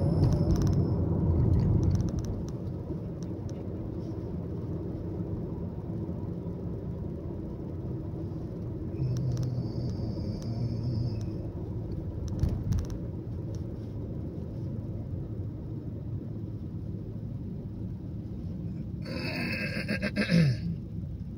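Steady low road and engine rumble heard from inside a moving car's cabin, with a brief louder noise near the end.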